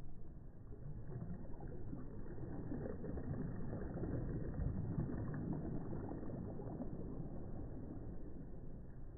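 Small waves breaking softly at close range: a wash of water that swells to a peak about halfway through and then eases off.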